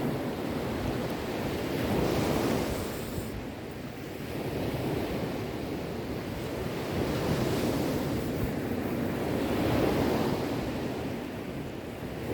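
Sea waves breaking on a shore: a continuous wash of surf that swells and eases about four times, every two to three seconds.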